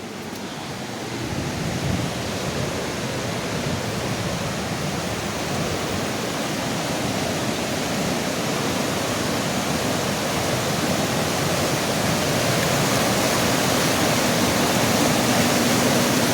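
Rushing floodwater from a swollen creek, a steady roar that grows louder throughout.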